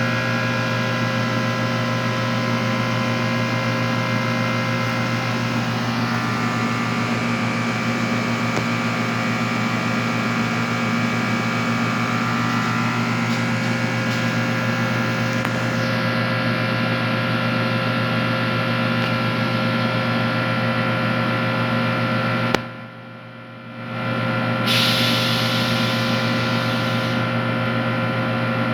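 Steady, loud mains-frequency machine hum from high-vacuum coating equipment. It cuts out abruptly for a moment about three-quarters of the way through, then comes back with a few seconds of hissing.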